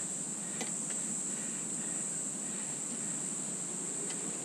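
Steady high-pitched drone of insects such as crickets, with two faint clicks, one about half a second in and one near the end.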